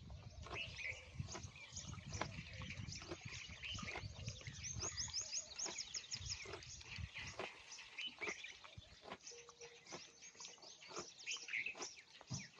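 Camel chewing, a steady run of irregular wet clicks and crunches, with a low rumble through the first few seconds. Birds chirp in the background, with a quick run of high chirps about five seconds in.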